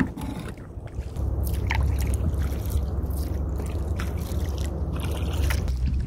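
Kayak paddle strokes dipping and splashing in river water, with drips and light knocks of the paddle, over a low steady rumble that sets in about a second in.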